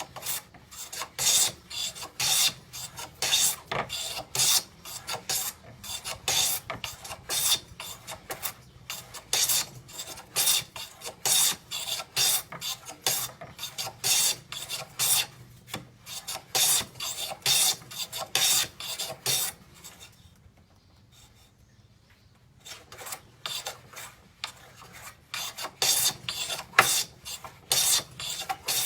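Homemade high-angle hand plane shaving pradu (Burmese padauk) hardwood: a run of short, quick rasping strokes, with a pause of about two seconds two-thirds of the way through before the strokes resume.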